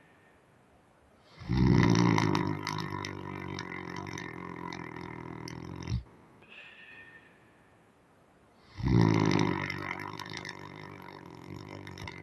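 A man snoring loudly: two long, harsh snores about seven seconds apart, each starting loud and fading away, with a faint breath between them.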